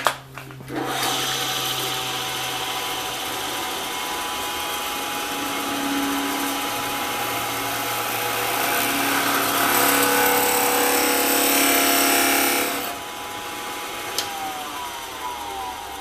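Old Rockwell drill press boring holes with a spade bit, run at a speed that is too fast for that bit: about twelve seconds of steady cutting noise over the motor and spindle hum. Then the cutting stops and the spindle's whine falls in pitch as it winds down.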